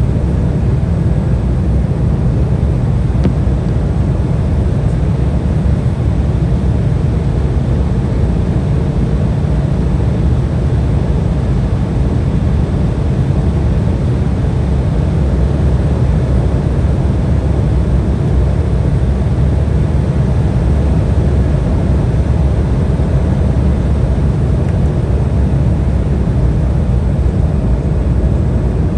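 Steady cabin noise inside an Embraer 175 airliner in flight: an even, deep rumble of airflow and the twin GE CF34-8E turbofans, with no changes.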